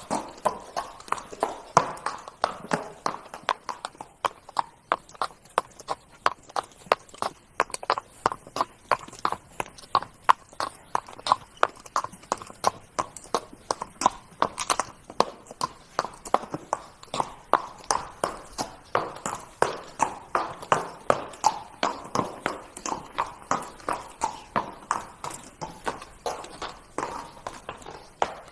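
Horse's hooves trotting: a steady, even clip-clop of hoof beats, a few per second.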